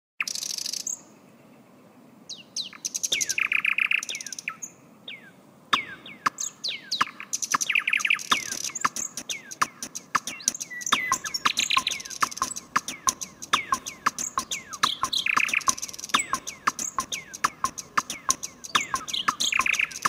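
A songbird singing: rapid sharp ticking notes and quick falling whistles, with a short buzzy phrase returning about every four seconds.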